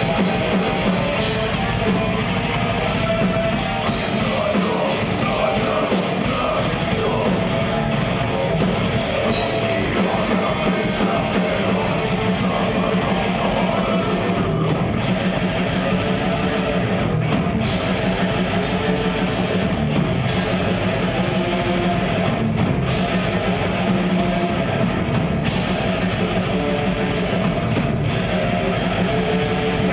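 Live progressive death metal: distorted electric guitars, bass and drum kit playing continuously and loud.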